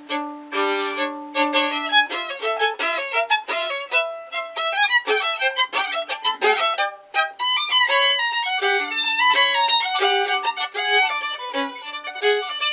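Solo violin playing: a few long held notes, then, about two seconds in, fast runs of many quick, short notes.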